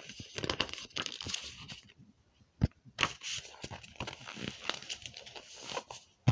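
Rustling and crackling as a picture book's paper pages are handled and shifted on a bedspread, in two spells with a short pause between them, and one sharp click about two and a half seconds in.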